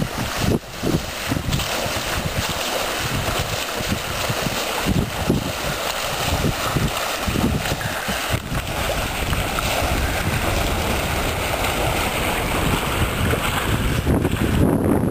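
Wind buffeting the microphone in irregular gusts over a steady rush of water along a sailboat's hull.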